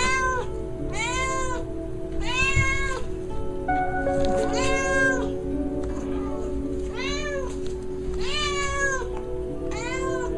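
Calico cat meowing repeatedly, about seven meows that each rise and fall in pitch, over background music with sustained notes.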